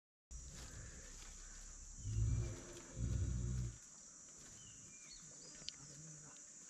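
Sri Lankan elephant rumbling twice, low growling calls about two and three seconds in, the second one longer.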